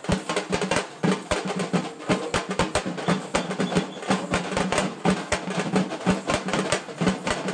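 Drums and other percussion played in a fast, unbroken rhythm of several sharp strikes a second.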